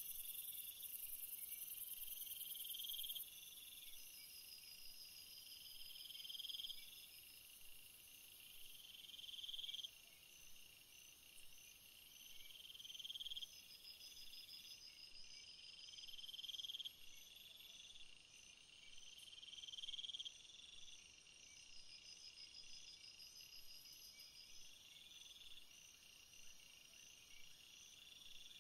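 Faint chorus of crickets and other insects calling. One swelling call about a second long repeats every three to four seconds over continuous high, pulsed chirping.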